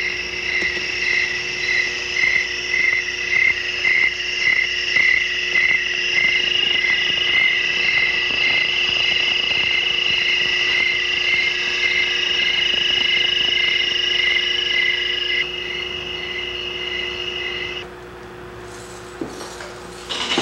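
Motion-triggered electronic sound circuit of a suspended headspace sound sculpture: a high chirping tone pulses about twice a second over a steady higher tone and a low hum. The pulsing stops about three quarters of the way in, and shortly after the tones cut off, leaving a quieter hiss.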